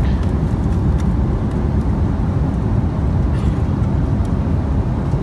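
Airliner cabin noise: a steady, loud low rumble of engines and rushing air, with a few faint clicks as a food wrapper is handled.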